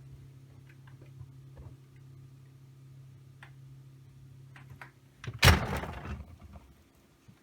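Steady low hum with faint ticks that stops; about five seconds in, a refrigerator door or drawer is shut with a loud rattling thud.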